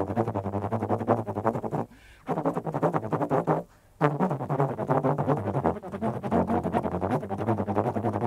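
Free jazz trombone holding a low, buzzing drone with rapid pulsing in the tone, broken by two short pauses about two and four seconds in.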